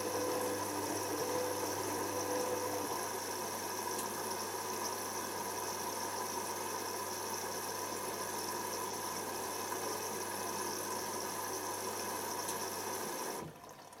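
Hoover WDYNS654D washer dryer's drain pump running with a steady hum as the drum slows from a spin to a stop; part of the motor hum drops away about three seconds in. The pump cuts off abruptly near the end.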